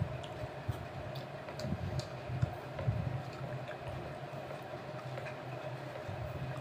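Eating with the hand: fingers mixing rice and chicken curry on a plate, and chewing, heard as many small scattered wet clicks and ticks over a steady low hum.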